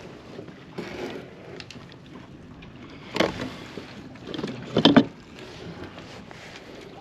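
Handling noise aboard a kayak: low rustle and shuffling, with two sharp knocks, about three seconds in and again near five seconds, the second the loudest.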